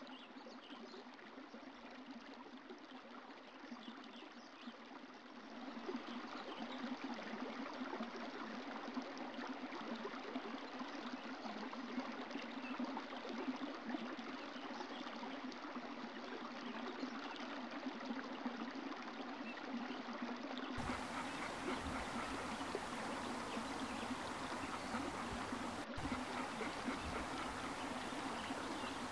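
Water running in a stream, a steady babbling hiss. About two-thirds of the way in the sound cuts to a fuller recording with more low rumble.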